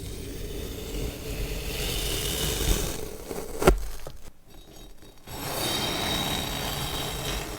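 Cutting noise: two long stretches of rough scraping, with a single sharp click between them about three and a half seconds in.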